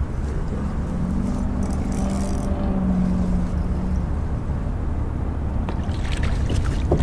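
Boat motor running steadily with a low rumble, a higher hum coming in for a few seconds in the middle. A few sharp knocks near the end.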